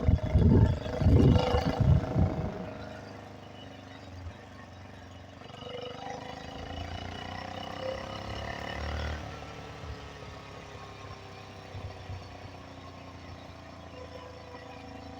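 Small 49cc four-stroke engine on a motorized bicycle running under way, its pitch rising from about six seconds in as it speeds up, then falling away as it slows. Loud low rumbling buffets in the first two to three seconds.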